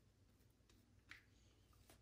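Very faint swishing of a shaving brush working soap lather over the cheek and jaw, with a couple of soft strokes standing out about a second in and near the end.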